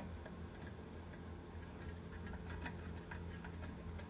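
Faint, light metal clicks and ticks of pliers gripping and working a cotter pin out of an upper ball joint's castle nut, over a steady low hum.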